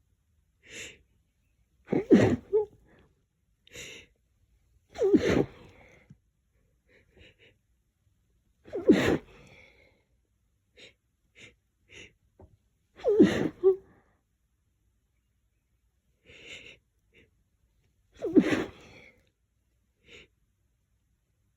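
A woman sneezing repeatedly: five loud sneezes a few seconds apart, with short quieter catches of breath between them. The sneezing is set off by lavender scent, to which she is sensitive.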